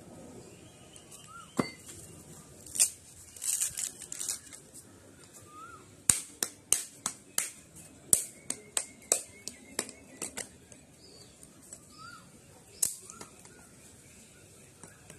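A coconut shell struck repeatedly with a small metal hand tool to crack it off. The sharp knocks come a few at a time early on, then in a quick run of two or three a second from about six to ten seconds in.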